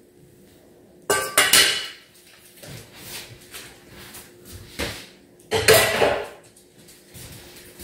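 Stainless steel steamer pot clattering as it is handled and set down: two loud clanks, about a second in and about five and a half seconds in, with lighter knocks between.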